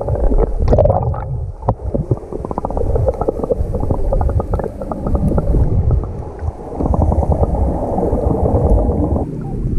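Seawater heard through a camera held underwater: a muffled rumble with dense crackling and small clicks, everything above the low range dulled away.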